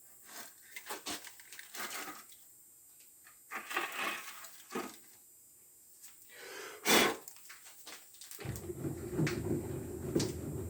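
Metal parts and tools being handled during a lathe setup, with scattered clicks and knocks and one sharp loud knock about seven seconds in. About eight and a half seconds in, a steady low running noise starts.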